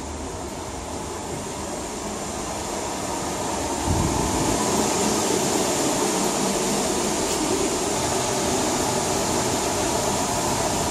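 Steady rushing background noise with a faint hum, growing louder over the first few seconds, with a low thump about four seconds in.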